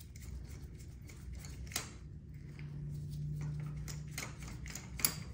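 Light, scattered clicks and taps of hand tools and a spark plug being handled, with a sharper click a little under two seconds in and another near the end. A faint low hum runs for about two seconds in the middle.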